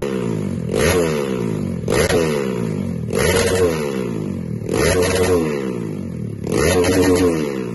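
Trail bike's engine running through a Norifumi Gridz competition exhaust, blipped five times about every one and a half seconds, each rev rising and falling back to idle. The revs settle and fade near the end.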